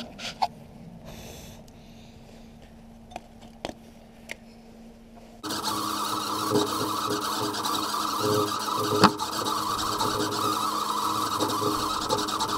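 Wire-feed welder arc crackling steadily as a bracket is welded to the mini bike frame, starting suddenly about halfway through. Before it there is a faint steady hum and a few light clicks.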